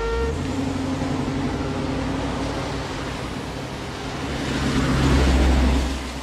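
Taxi cab's engine and tyres on a wet street as the car drives off and passes close by, a steady rumble that swells to its loudest about five seconds in, then falls away.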